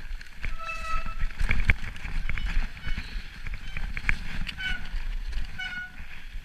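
Mountain bike ridden fast down a snowy, rough trail: a steady low rumble with rattling clicks from the bike over the bumps, and three short squeaks, about a second in, near four and a half seconds and near six seconds.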